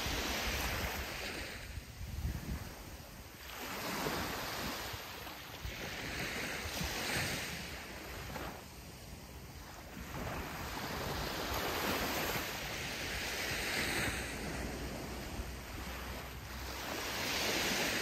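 Sea waves breaking and washing up a sandy beach, each surge of surf swelling and fading, with a new one every three to four seconds.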